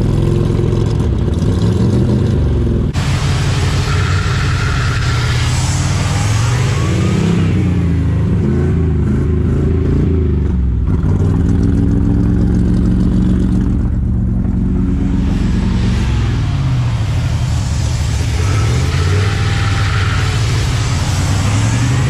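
Small-block Chevy 305 V8 in a 1989 Chevrolet CK1500 pickup, revved up and down repeatedly at the exhaust while diesel is drawn into its intake through a hose, burning it off as thick white smoke.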